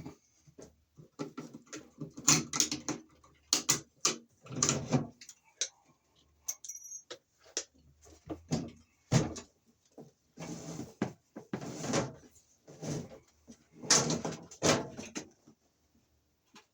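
Electrical wires and hand tools being worked at a junction box: irregular rustling, scraping and clicks as the wires are handled and pulled.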